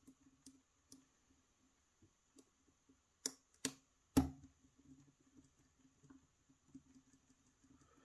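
Small metal clicks and faint tapping from a hook pick working the pin stacks of a pin-tumbler challenge lock under tension, with three sharper clicks a little past the middle. The lock gives several clicks per pin, which the picker takes for serrated pins or threaded chambers.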